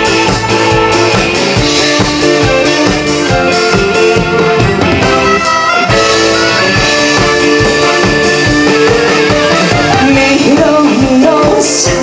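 Live band music with a steady beat: the instrumental introduction of a trot song, its melody line holding one long note that wavers in pitch about three-quarters of the way through.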